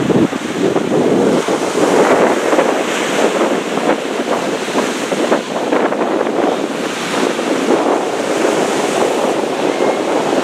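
Surf washing onto a beach, with wind buffeting the microphone in irregular gusts.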